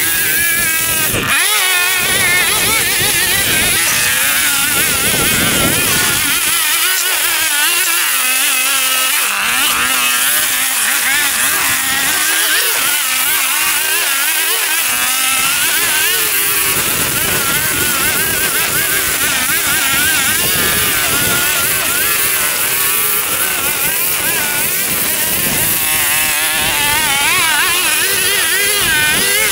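Gas lawn mower engine running steadily while cutting tall, overgrown grass, its pitch wavering up and down as the load changes.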